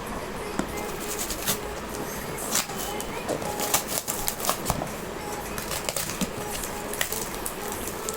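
Packaging being handled and opened by hand: irregular rustling and crackling with scattered sharp clicks.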